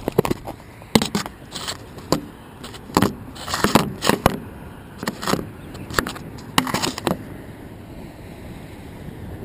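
Irregular knocks, clicks and scraping of a camera being handled close to the microphone, some in quick clusters, stopping about seven seconds in. Steady outdoor wind noise is left after that.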